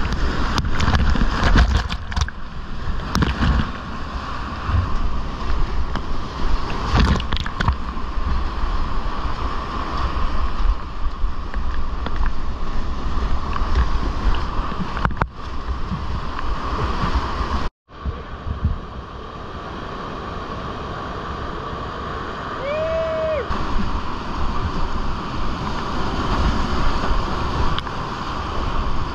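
Whitewater rapids rushing loudly around a kayak as it runs them, with water splashing close by. The sound drops out for an instant a little past halfway.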